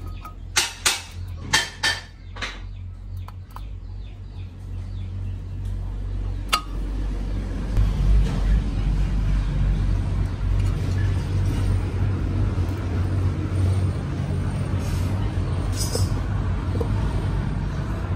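A few sharp metal clinks and knocks while a bearing is worked out of a cast-iron housing. A steady low mechanical hum then builds and runs on.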